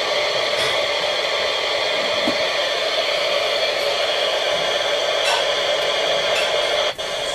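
Sony ICF-2001D shortwave receiver giving out a steady static hiss through its speaker. The hiss drops out for an instant near the end.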